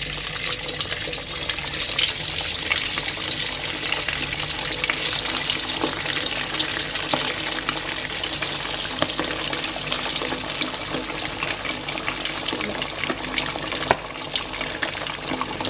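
Beef patties coated in grated coconut deep-frying in hot oil in a wok: a steady crackling sizzle with many small pops.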